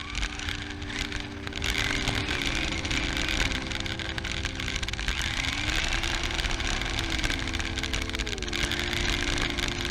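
An engine running steadily, its pitch shifting up and down a few times, over a constant low rumble.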